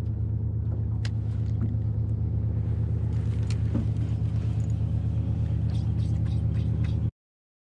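Fishing boat's engine running steadily with a low, slightly pulsing hum; the sound cuts off suddenly about seven seconds in.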